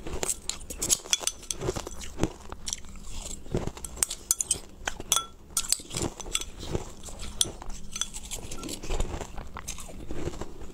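Ice crunching as it is bitten and chewed in short, irregular crackling bites, with a metal spoon now and then clinking and scraping against a glass bowl.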